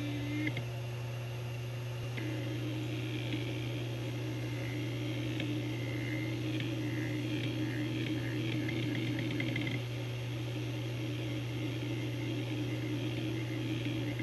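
Opened Seagate Barracuda ATA IV (ST340016A) hard drive running with its cover off: a steady 7200 rpm spindle hum, with the head actuator seeking as rapid high chirps and ticks, busiest from about two to ten seconds in and picking up again near the end. Heard through a phone's microphone.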